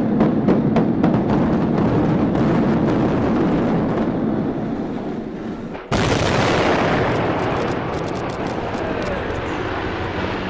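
Controlled demolition blasts: a rapid series of sharp explosive bangs over a heavy rumble. About six seconds in a sudden loud blast is followed by another string of bangs and a long rumble as the blown tower blocks collapse.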